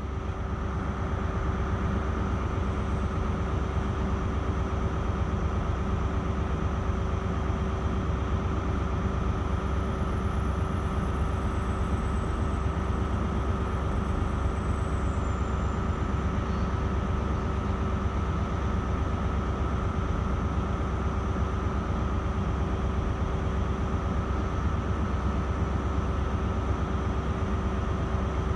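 Diesel trains running steadily in the station: an unbroken low engine rumble with a constant hum over it.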